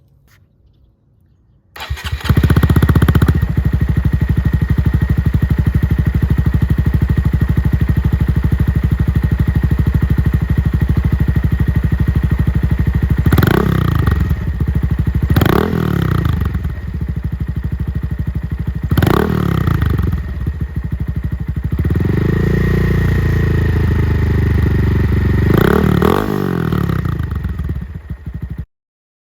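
A 2020 Honda Monkey's single-cylinder engine with a Yoshimura RS-3 exhaust starts about two seconds in and idles. It is blipped four times, held at higher revs for a couple of seconds, and then shut off shortly before the end.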